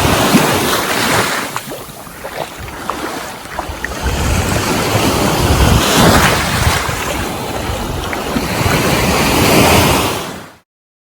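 Ocean surf washing onto a beach, swelling and easing in waves, with wind buffeting the microphone. The sound cuts off suddenly near the end.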